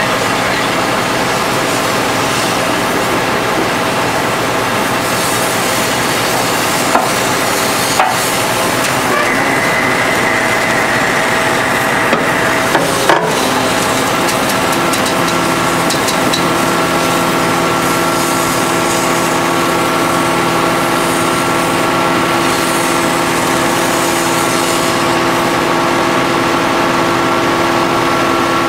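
Hydraulic pile extractor and its power unit running steadily, with a few sharp metallic knocks in the first half; about halfway the hum settles into a steadier, more even set of tones.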